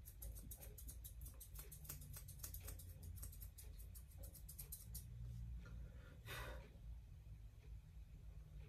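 Grooming shears snipping quietly and quickly through a Persian cat's facial fur as the face is rounded off: a rapid run of small clicks for about five seconds, then a brief soft hiss about six seconds in.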